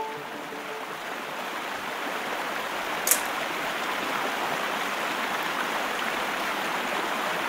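Steady rush of whitewater from a river cascading down a waterfall, growing slightly louder over the first couple of seconds, with a short sharp hiss about three seconds in.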